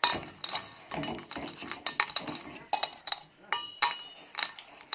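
Utensils clinking and knocking against a bowl in quick, irregular strokes, while chicken pieces are worked in a thick batter coating. One clink rings briefly a little past halfway.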